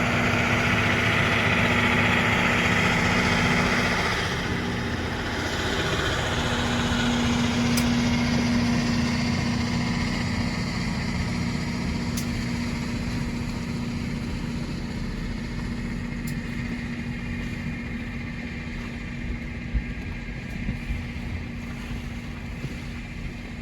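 Engines running, with a steady low hum under a rushing hiss that is loudest in the first half and slowly fades. A few faint clicks come near the end.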